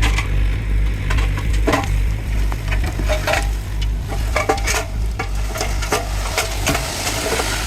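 Mini excavator engine running steadily, with the bucket scraping and rattling through crushed stone in irregular strokes.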